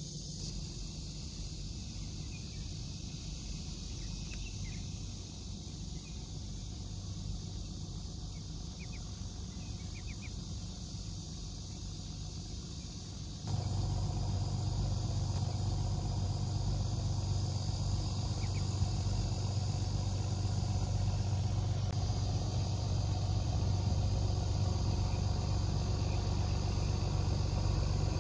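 Steady outdoor background rumble and hiss, stepping up louder about halfway through.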